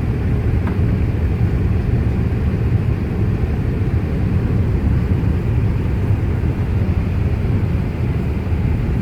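Airbus A380 airliner noise heard from inside the passenger cabin: a steady low rumble.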